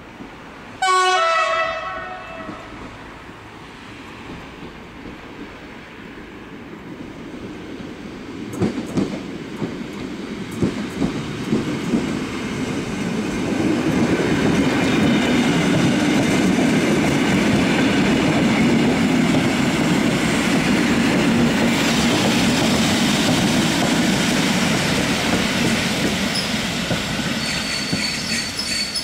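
A train horn sounds once, a single blast about a second in. Then a PolRegio EN57 electric multiple unit approaches and runs past close by: a building rumble with a few clacks of wheels over rail joints, steady loud running noise from about fourteen seconds on, and a thin wheel squeal near the end.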